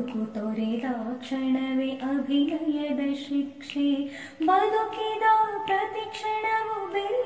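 A woman singing a slow Kannada song, drawing out long notes. Her pitch steps up to a higher held line about four and a half seconds in.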